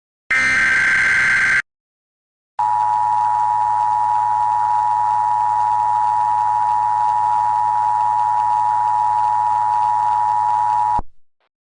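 Emergency Alert System tones. The last of the SAME header data bursts, a short buzzing screech, is followed after a pause of about a second by the two-tone attention signal (853 and 960 Hz). The attention signal sounds steadily for about eight seconds and cuts off suddenly.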